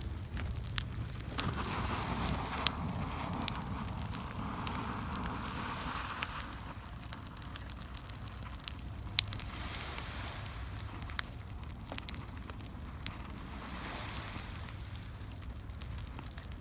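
Wood campfire crackling, with sharp pops scattered throughout over a low steady rumble.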